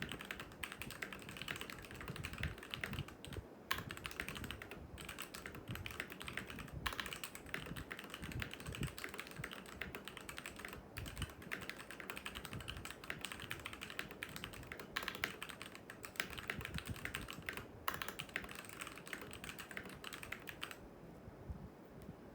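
Fast, continuous typing on a Tecware B68+ mechanical keyboard with Gateron Yellow linear switches, at about 94 words a minute: a dense run of key clacks with a few brief pauses. The typing stops about a second and a half before the end.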